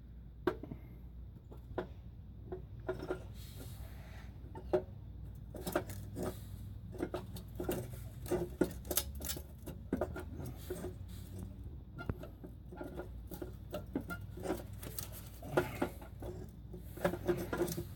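Irregular metallic clinks, taps and scraping as the exhaust headers and tools are handled and shifted on the engine, with a few louder knocks scattered throughout.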